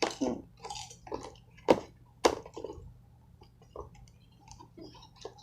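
Hands working at a taped cardboard box: irregular rustles and clicks, with two sharp snaps about half a second apart around two seconds in.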